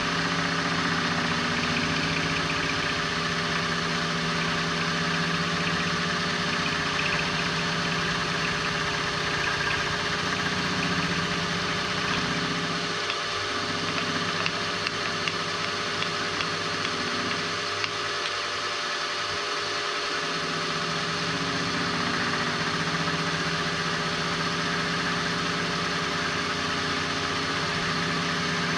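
Milling machine running steadily, its cutter facing off the end of a small metal cylinder block.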